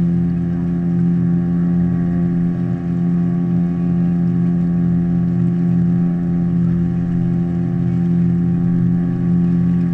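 Small river boat's motor running steadily at cruising speed, a constant hum that holds one pitch.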